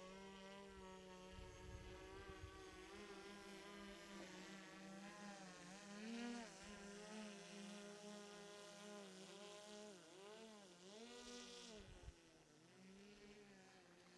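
DJI Mavic 3 Pro quadcopter's propellers buzzing faintly, a steady multi-toned hum whose pitch wavers and dips several times in the second half as the motors speed up and slow down.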